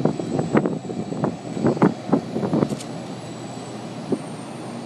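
Taiwan High Speed Rail 700T trainset arriving and slowing at the platform. Its passing rush comes with a run of irregular thumps and a faint high whine for the first three seconds, then settles into a quieter, steadier sound as the train nears a stop.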